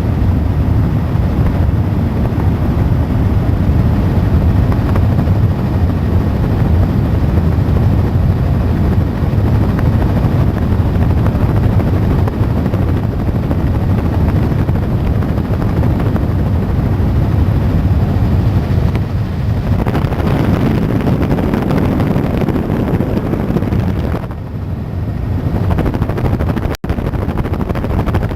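Helicopter rotor and turbine engine noise, a loud steady drone weighted to the low end, cutting out for an instant near the end.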